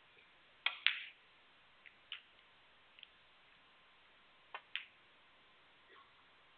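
Sharp clicks in a hushed snooker arena. Past the middle comes a quick pair of clicks, the cue tip striking the cue ball and the cue ball striking a red, then a faint knock near the end. A louder pair of knocks comes about a second in, with a few lighter ticks between.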